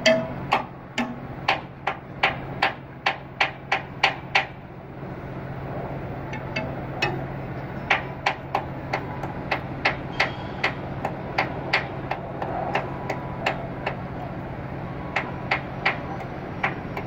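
Regular percussive clicks, about two to three a second, keeping a steady beat, over a steady low hum. The clicks thin out for a few seconds near the middle.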